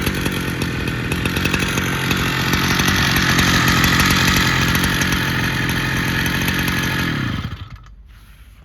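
Mitsubishi T200 two-stroke brushcutter engine, fitted with a diaphragm carburetor, running steadily at high revs. About seven and a half seconds in it is shut off and dies away quickly.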